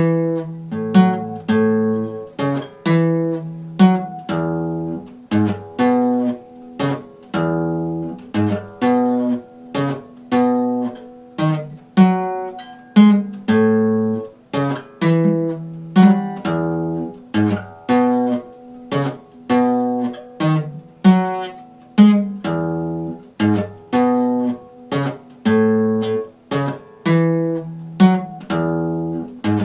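Epiphone acoustic guitar strummed in a steady rhythm, the chords changing every second or so.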